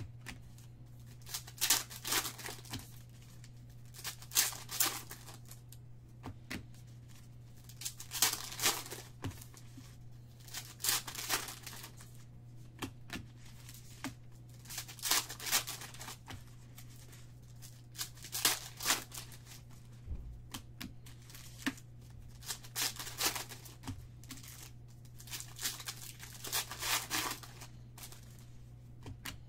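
Foil trading-card packs being torn open and their wrappers crinkled, in short bursts every second or two, over a steady low hum.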